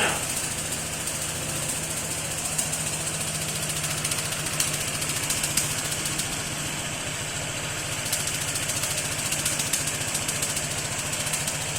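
A vehicle engine idling steadily, with an even low hum that holds the same pitch throughout.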